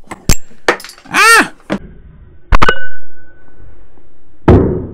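Small steel nail puller working a finishing nail out of wood: a few sharp metal clicks, a short pitched cry, then a hard metallic strike as it slips off and something ricochets, ringing briefly. Another loud knock near the end.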